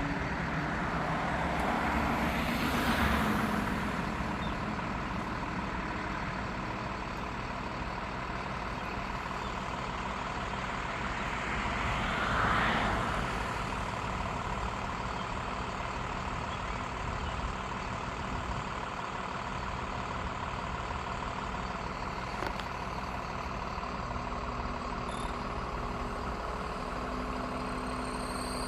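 Road traffic: two vehicles pass by, about three seconds in and again about twelve seconds in, over a steady low engine hum.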